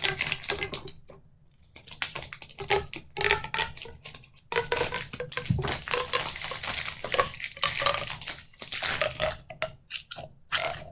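Plastic packaging crinkling and rustling in quick, irregular handling noises as a toy is unwrapped, with a short lull about a second in.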